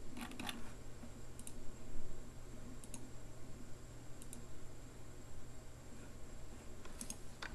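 A few sharp clicks of computer mouse buttons and keys, in clusters near the start and near the end with single clicks between, over a faint steady hum.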